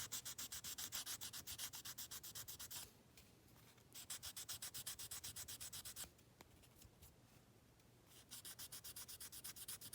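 Fine-grit sanding stick rubbed back and forth over a plastic model kit part, faint and quick at about five strokes a second, in three bouts with short pauses between them: sanding down a glued seam line.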